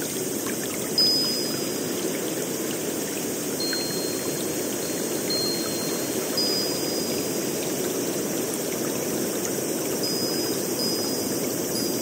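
Steady rushing of running water, with short high, even-pitched tones now and then.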